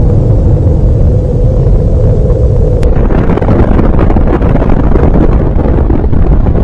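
Loud, continuous deep rumble of a huge nuclear explosion. A sharp click comes about three seconds in, after which the rumble turns rougher and more crackly.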